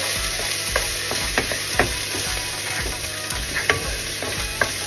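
Chopped onion sizzling as it sautés in a little cooking oil in a nonstick pan, stirred with a wooden spoon, with scattered sharp taps and scrapes of the spoon on the pan.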